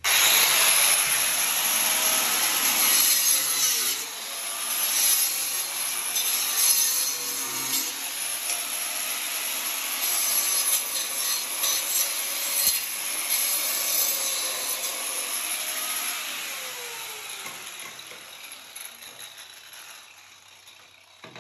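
Angle grinder with a cutting disc running under load, its pitch wavering as the disc bites into the work. The sound starts suddenly and fades over the last five seconds or so.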